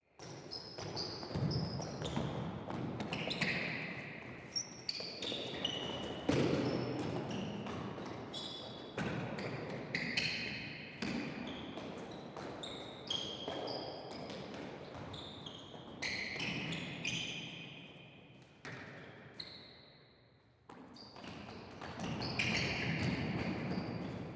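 Gym shoes squeaking on a gym floor as several people move about: many short, high squeaks, some sliding in pitch, with footfalls and hall echo. There is a brief lull near the end.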